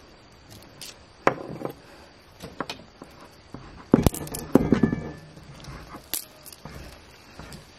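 A kitchen knife cuts through mandazi dough on a wooden table, its blade knocking sharply on the wood a few times, loudest about four seconds in. A brief pitched sound follows just after that knock.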